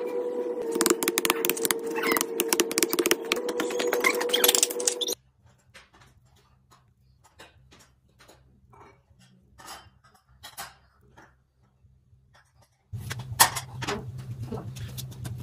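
Dense clicking and scraping of bamboo strips being laid and pressed into moulding sand, over a steady hum. After a cut, near silence with a few faint ticks while molten metal is poured into the sand mould, then a louder stretch of crackling noise with a low hum near the end.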